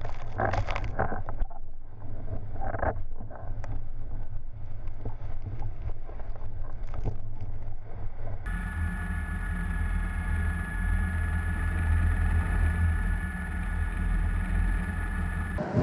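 Gale-force wind buffeting the microphone, a heavy low rumble. About eight seconds in it cuts to a louder, steadier rumble with a faint steady high whine.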